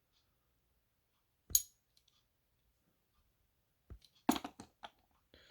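A single sharp metallic clink about one and a half seconds in, then a quick run of light clicks and taps near the end, with near silence between: small die-cast model cars being handled and set down.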